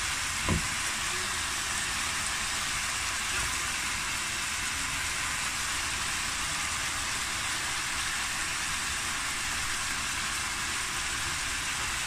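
Sliced chicken, bell peppers and onion sizzling steadily in a hot wok, with one low knock about half a second in.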